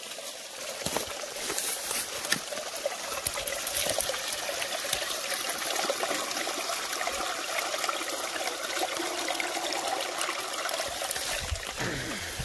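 Water trickling in a small, shallow mossy creek while a soft water bag is dipped in and filled, water splashing and pouring into it.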